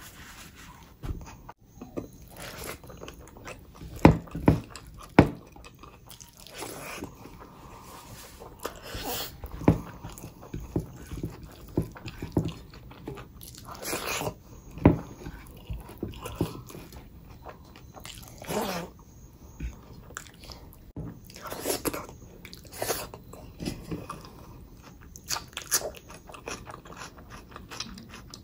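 A person eating close to the microphone: bites and chewing with irregular crunches and mouth clicks, a few louder bites about four to five seconds in.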